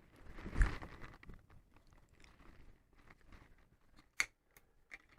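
Hand-handling of a plastic phone clamp being fitted onto a tripod head: small scrapes and clicks, with a louder knock about half a second in and a sharp click about four seconds in.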